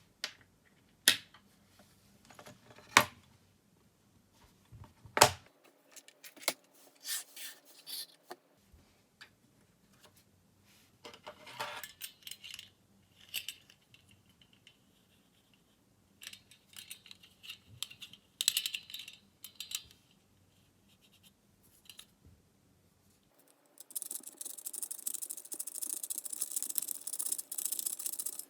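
Small metal parts and hand tools being handled at a workbench: sharp clicks and clinks at irregular intervals, then a steady stretch of scraping or brushing near the end.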